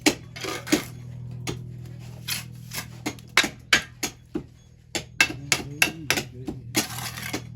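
Repeated sharp, irregular taps of a metal tool on stone during drystone-style walling work, each with a short ring, over a steady low hum.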